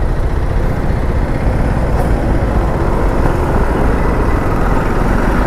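Steady engine noise of a city traffic jam: buses and auto-rickshaws idling and creeping close around a motorcycle, heavy at the low end.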